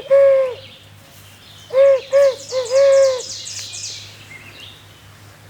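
Barred owl hooting its 'who-cooks-for-you' phrase twice: a few short hoots, then a longer drawn-out final note, the second phrase about two seconds in. Just after it comes a quick, high-pitched rattling series of notes.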